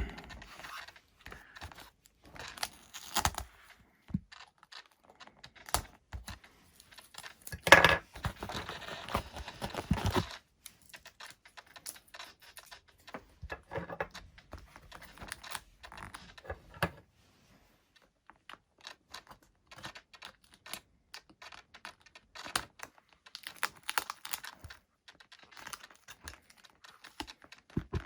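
Bench work on an EPP foam model plane with a hobby knife and small parts: scattered light clicks, taps and scrapes, with a louder rasping scrape lasting about two seconds, some eight seconds in.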